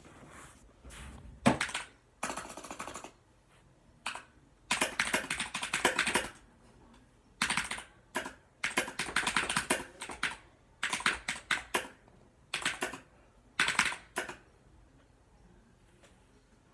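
Typing on a Razer mechanical keyboard: rapid key clicks in several flurries of about a second each, separated by short pauses.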